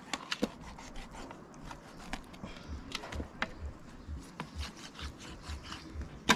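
Kitchen knife cutting raw rabbit meat on a plastic tray: scattered scrapes and small clicks of the blade against the tray, with a soft low pulse about twice a second in the middle as the knife saws back and forth, and a sharp knock near the end.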